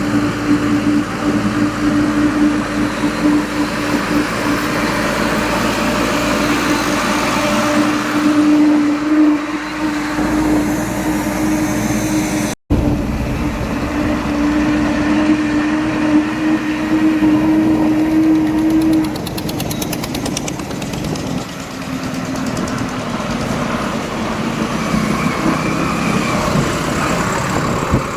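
Diesel engine of heavy farm or construction machinery running steadily, with a brief dropout in the sound about halfway through.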